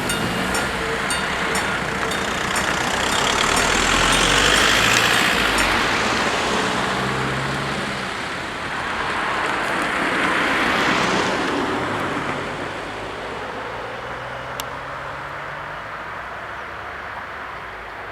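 Level-crossing warning bells striking about twice a second, fading out over the first few seconds as the crossing clears. Then two road vehicles drive over the crossing, the first about four seconds in and the second about ten seconds in.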